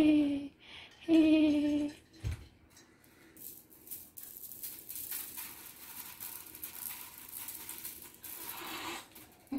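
A short drawn-out vocal sound about a second in, then a Christmas bead garland rattling as its beads are dragged over a marble tile floor, a light, steady clicking from about four seconds in until near the end.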